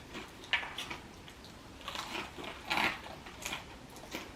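Close-up biting and chewing of crispy fried chicken: irregular crunches of the breaded skin, the loudest about three seconds in.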